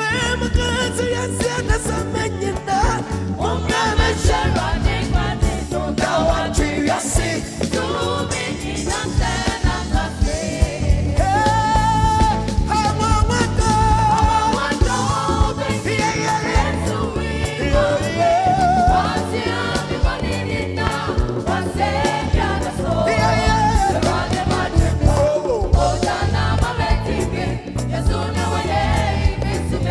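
Live gospel music: singing over keyboard and a steady beat.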